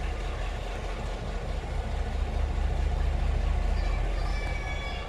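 Diesel-electric locomotive engine running with a steady low rumble while hauling another locomotive at slow speed. A faint high-pitched squeal comes in near the end.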